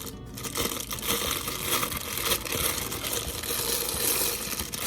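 Packaging wrap around a camera lens crinkling and rustling steadily as it is handled and unwrapped, starting about half a second in.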